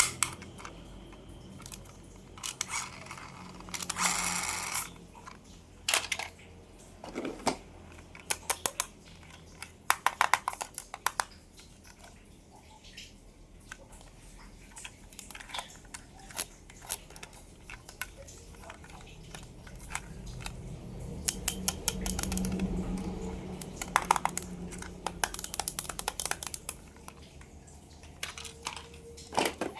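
Plastic toy cars and their packaging being handled: scattered sharp clicks and taps, with a short burst of crinkling about four seconds in and a longer stretch of rustling and crinkling in the second half.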